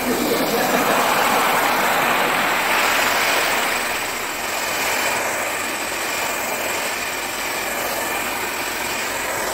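Handheld hair dryer running steadily, a steady rush of air that is a little louder in the first few seconds and eases slightly after that.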